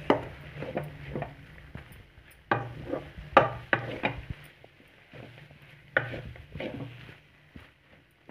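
Wooden spatula scraping and knocking against a metal kadai as a dry spinach-and-egg stir-fry is stirred and tossed, in groups of quick strokes that die away near the end. The stirring keeps the mixture from catching and burning at the bottom of the pan.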